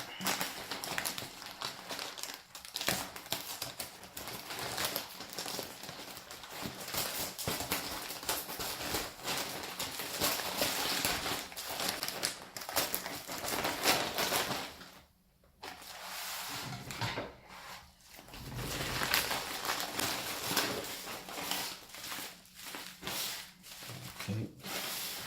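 A shipping package being torn open by hand and its wrapping crinkled: continuous crackling and rustling with sharp little snaps, and a short pause about fifteen seconds in.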